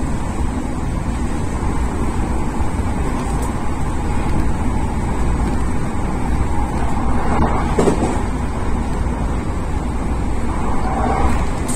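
Odakyu electric commuter train running at speed, heard from inside the carriage: a steady low rumble of wheels on rail as it passes a station platform, with brief louder patches about eight seconds in and again near the end.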